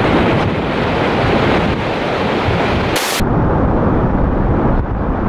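Wind buffeting the camera microphone: loud, steady rumbling noise, with a short hiss about three seconds in.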